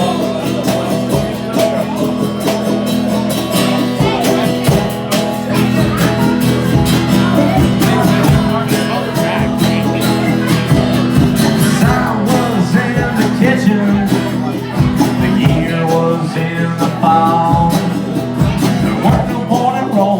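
Live rock band playing a passage between sung verses: guitars over a bass line and a steady drum beat.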